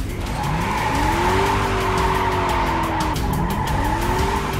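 Vehicle engine revving up twice in a film chase scene, each time climbing in pitch and then holding. A long tire squeal runs over it.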